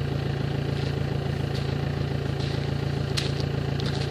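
BMW 320d E90's 2.0-litre four-cylinder turbodiesel idling steadily with its rear silencer removed, heard at the exhaust tips, giving a low, pulsing diesel exhaust note.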